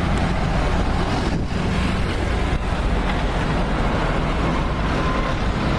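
Running water rushing steadily over a toy vehicle as it is washed, an even splashing hiss with no pauses.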